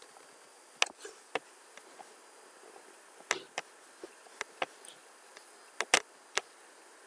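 Computer mouse clicking: about ten short, sharp clicks, some in quick pairs, over a faint steady hiss.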